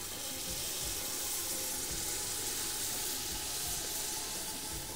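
Water poured steadily from a plastic jug into an aluminium cooking pot of stew base, a continuous splashing pour.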